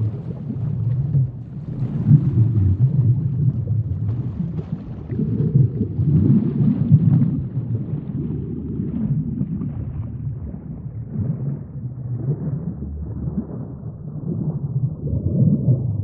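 Sinking-in-the-sea sound effect: a deep, continuous underwater rumble that swells and eases every few seconds, with a faint higher crackle that thins out in the second half.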